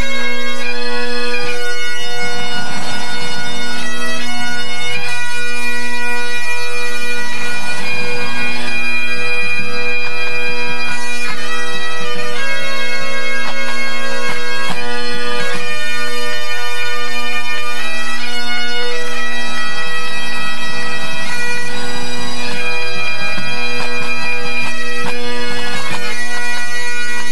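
A pipe band's Highland bagpipes playing together during a tune-up: a steady drone sounds under the changing chanter melody.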